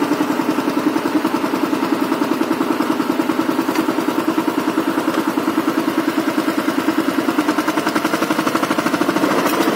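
Single-cylinder diesel engine of a walk-behind power tiller running steadily under load as it puddles a flooded paddy field, with a rapid, even beat.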